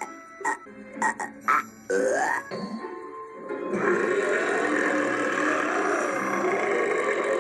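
A female cartoon character burping: a few short sounds in the first two seconds, then a long, drawn-out burp that starts a little under four seconds in and is still going at the end.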